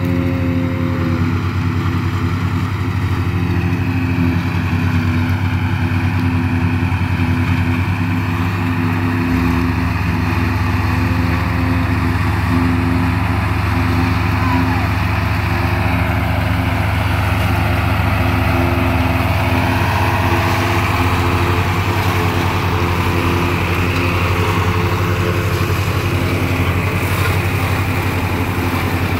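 Two John Deere tractors running steadily under load, with a Papec one-row forage chopper cutting standing corn and blowing the chopped corn up its spout into a feed wagon. A steady engine drone whose low note shifts slightly about nine seconds in.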